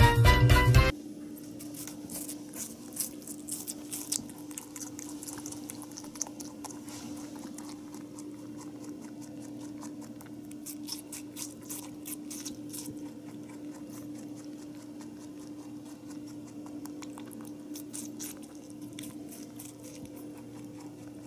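Music cuts off about a second in, then a rabbit chews a piece of red food close up: a long run of quick wet crunching and clicking over a steady hum.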